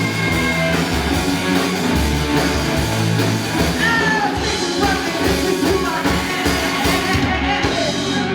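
Live rock band playing loudly, with electric guitar, drums and a singing voice, in the closing bars of the song.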